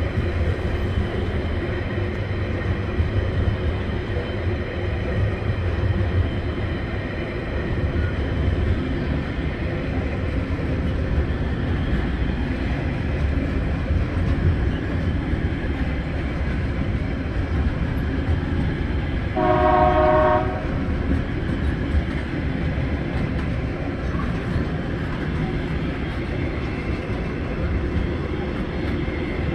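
Container wagons of a TasRail freight train rolling past: a steady rumble of steel wheels on rail. About two-thirds of the way through, a horn sounds once for about a second.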